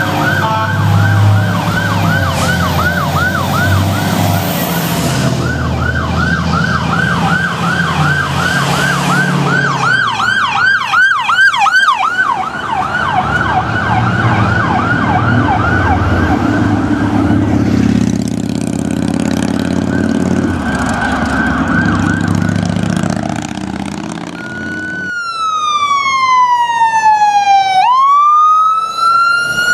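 Fire-department emergency vehicle sirens with a truck engine rumbling underneath. The siren runs a rapid yelp for most of the time, with a brief faster warble partway through. Near the end it switches to a slow wail that falls and then rises again.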